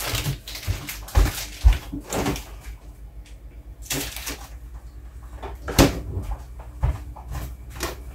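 Scattered knocks, clicks and low thuds of things being handled in a kitchen, the sharpest click about six seconds in.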